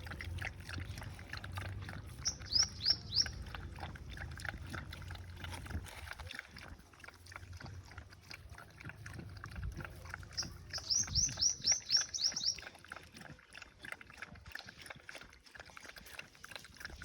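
Dogs eating and lapping, a steady run of small wet clicks and smacks. Twice a bird calls a quick series of high, falling chirps: four about two seconds in, and a longer run of about eight near eleven seconds.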